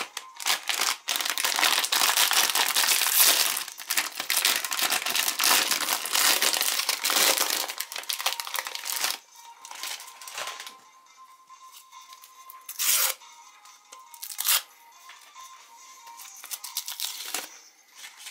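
Plastic foil wrapper of a packaged croissant crinkling and tearing as it is opened, a dense rustle for the first half, then a few short separate crinkles as a paper-sleeved collectible cap is pulled out and unwrapped. Faint background music runs underneath.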